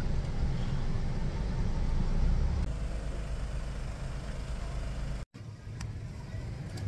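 Low, steady rumble of a moving car heard from inside the cabin. It cuts off abruptly about five seconds in, and quieter vehicle noise with a few faint clicks follows.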